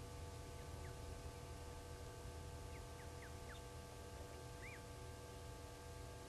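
Faint, thin, high bird chirps: a handful of short falling notes scattered through, with a few close together in the middle. They sit over a steady low hum and rumble.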